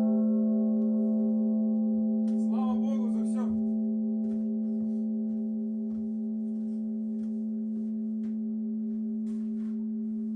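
Church bell's ring dying away with no new stroke: one long, steady hum with several overtones, slowly fading.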